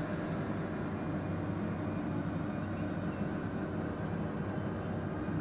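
Electric ducted-fan jets of a radio-controlled Airbus A320 model airliner flying far off: a steady distant whine over a steady rush of outdoor air noise.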